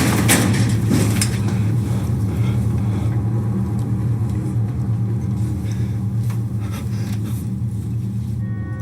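A steady low rumbling drone, with scratchy rustling noises over it in the first second or so.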